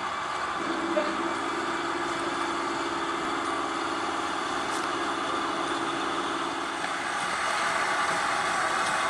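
GWR 2884-class 2-8-0 steam locomotive 3822 standing in steam, hissing steadily. A low steady hum under the hiss stops about seven seconds in, and the hiss grows a little louder near the end.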